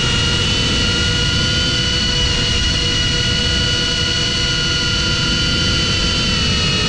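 FPV quadcopter's brushless motors and propellers whining at a steady, high pitch under a low wind rumble on the drone-mounted GoPro's microphone.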